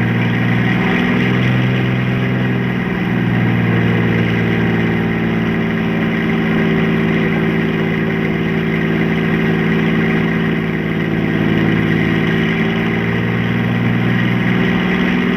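Motor vehicle engine droning at a steady pitch, with a low part that fades in and out, over the hiss of an old optical soundtrack.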